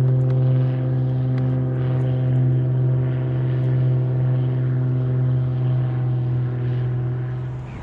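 Steady motor drone holding one constant pitch, which cuts off suddenly at the very end.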